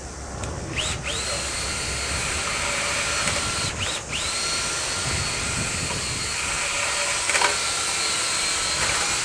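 A power drill running a rotary dryer-vent cleaning brush, with a steady motor whine. It is let off briefly twice, about one and four seconds in, and each time spins back up.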